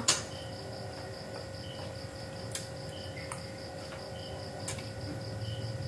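Crickets chirping in fast, even pulses, with a second insect call repeating about once a second. Under them runs a steady low hum, and there are a few faint clicks.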